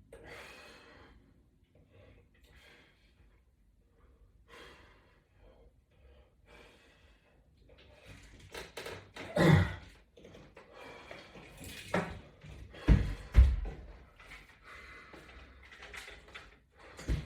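Dull thumps and knocks from a resistance-band workout on floor mats, mixed with breathing. After several quiet seconds comes one loud thump about halfway through, then two more in quick succession a few seconds later.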